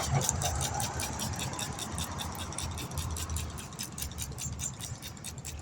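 Rapid, even clicking, about eight a second, over a steady low hum.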